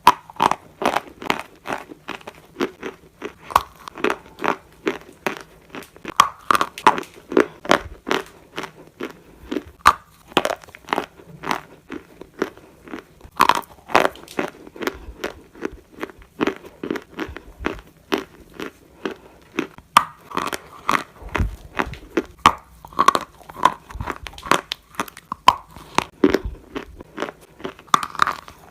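Close-up crunching of dry edible Turkestan clay being bitten and chewed, with sharp crisp cracks coming several times a second.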